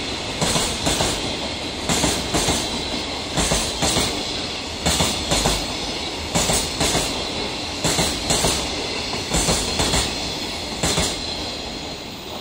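Freight train of container wagons rolling past at speed: a steady rumble with the wheels clacking over rail joints in quick clusters about every one and a half seconds, fading near the end as the last wagon goes by.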